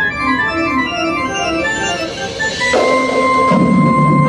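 Marching band music: an electronic keyboard plays a quick melody of short notes, then about two-thirds of the way through the band comes in with a held chord and low brass swelling underneath.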